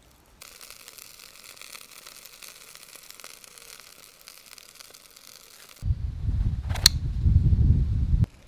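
Chicken and tomato skewers sizzling on a hot grill, a steady high hiss for about five seconds. It gives way to a loud low rumble of handling noise, with one sharp click in it, while a knife is handled.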